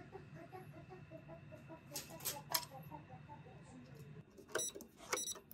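Faint kitchen handling sounds while cooked clams are shelled into a stainless-steel bowl: a few light clicks, then two sharper metallic clinks near the end. Under them runs a low steady hum that stops about four seconds in, with a faint rapid patter of short blips.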